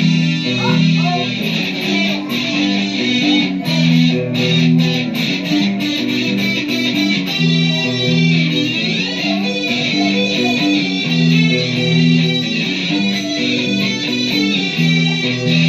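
Guitar jam: guitar playing a riff that repeats about every two seconds.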